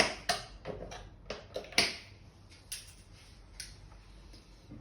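Hard plastic clicking and knocking of a vacuum cleaner's motor housing parts being pressed and worked by hand: a quick run of sharp clacks in the first two seconds, then a few more spaced out. A latch clip is jamming, so the part won't snap into place.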